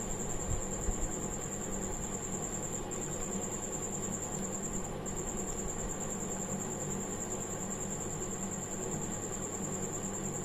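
Steady background hum and hiss with a constant high-pitched whine, and two soft low thumps about half a second to a second in.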